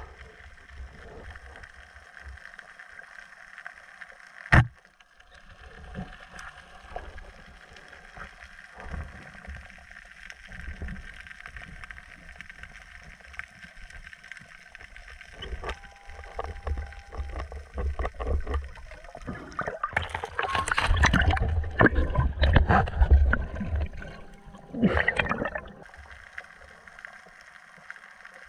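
Underwater: a speargun fires with one sharp snap about five seconds in. Water then sloshes and gurgles around the camera, and near the end a loud bubbling rush lasts several seconds.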